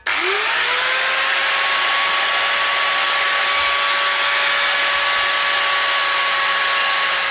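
Ozito 100 mm angle grinder with a metal-cutting disc spinning up, its whine rising over the first half second to a steady pitch. It then runs steadily with a hiss while grinding into a MacBook charger's metal MagSafe connector housing, and stops abruptly at the end.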